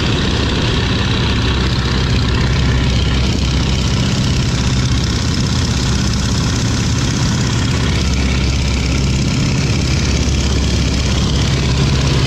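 Stearman biplane's radial engine running steadily in flight, heard from the open cockpit with a loud, constant rush of wind over it.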